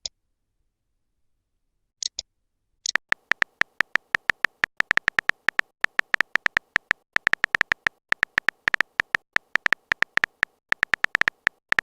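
Phone keyboard typing sound effect: rapid, irregular taps, several a second, beginning after two brief blips about two to three seconds in and running on with short pauses.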